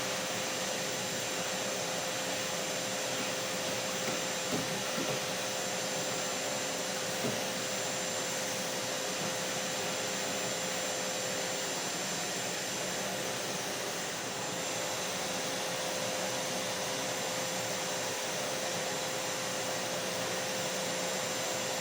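Vacuum cleaner motor running steadily: an even rushing noise with a constant whine through it, and a few faint knocks about five seconds in.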